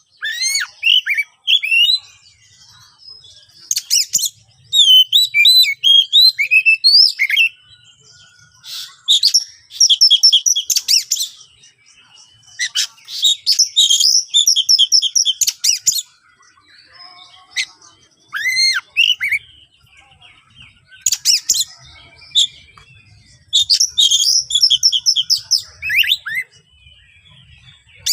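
Oriental magpie-robin (kacer) singing loud, harsh song in bursts. Rising whistled notes alternate with fast rapid-fire runs of repeated notes, separated by short pauses.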